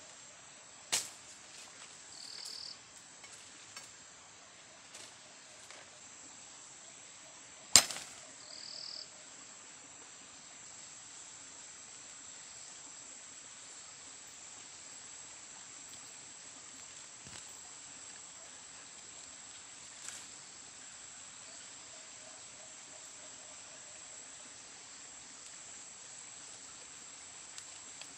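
Steady high-pitched drone of crickets or similar insects in forest undergrowth. A few sharp knocks stand over it, the loudest about eight seconds in. Two short chirps come early on and just after the loudest knock.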